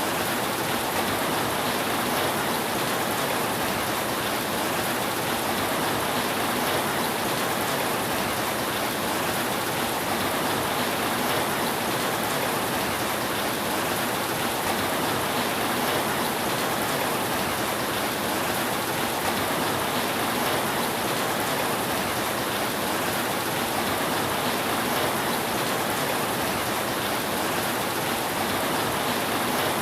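Steady rain falling on a roof, an even hiss of drops with no breaks and no thunder.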